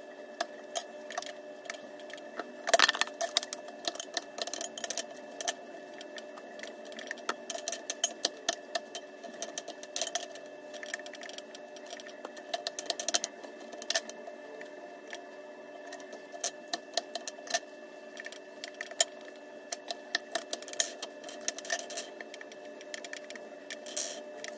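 Irregular clicks and clinks of a fork and fingers on ceramic bowls and plates as eggplant pieces are dipped in beaten egg and dredged in flour, over a steady hum.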